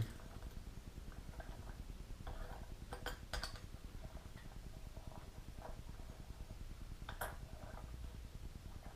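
Faint handling noises of small parts and tools on a workbench: a few sharp clicks, two close together about three seconds in and another later.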